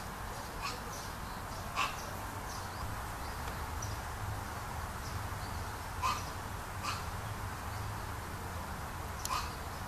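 Honeybees buzzing steadily at a hive entrance: the low hum of many worker bees flying in and out. Four short, sharp chirps sound over it, about two, six, seven and nine seconds in.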